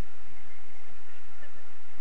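Wind rushing over the microphone of a camera carried in flight on a tandem paraglider: a steady hiss with a fluttering low rumble.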